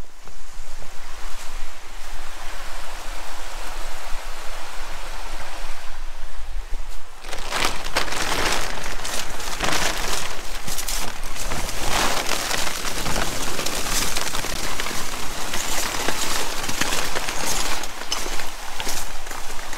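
A steady hiss, then from about seven seconds in, a plastic tarp rustling and crackling with many sharp crinkles as it is brushed and pushed aside.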